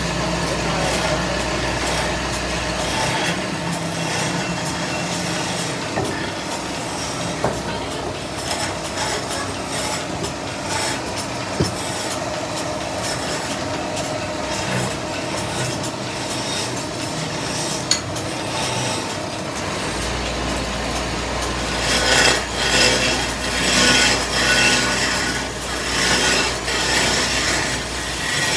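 Wood lathe running with a hand chisel scraping and cutting a spinning wooden cot leg. The cutting grows louder and rougher, in uneven strokes, in the last several seconds, and there are a few sharp clicks along the way.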